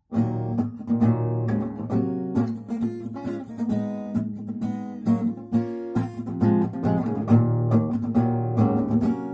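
Acoustic guitar strummed in a steady rhythmic pattern, the chords broken up by sharp percussive strokes, as in the 'knock' (стук) strumming technique that the lesson is about.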